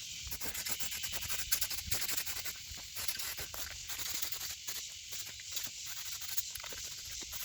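Electric welding arc on sheet-steel core support patch panels: a steady hiss broken by dense, irregular crackling.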